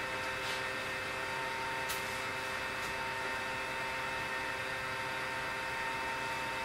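Milwaukee M18 dual-bay rapid charger's cooling fan running while two batteries charge: a steady hum with a few fixed tones over a soft hiss. A few faint light clicks in the first three seconds.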